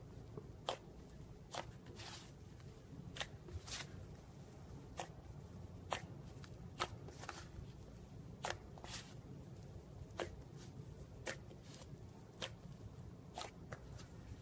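Slime being worked by hand, making sharp popping clicks that come irregularly, about one a second, over a low steady hum.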